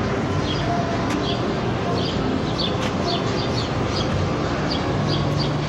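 Birds chirping: a run of short, quick chirps repeating several times a second over a steady background hiss.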